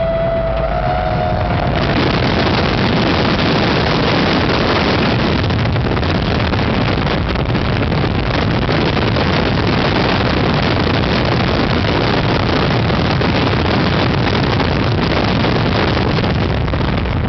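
Loud, steady wind noise buffeting the microphone as a steel roller coaster train runs at speed along its track. A single held tone sounds in the first two seconds and then fades.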